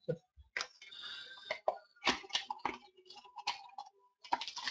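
Trading card packs being handled and opened: irregular clicks and crinkling rustles of a foil wrapper and cards.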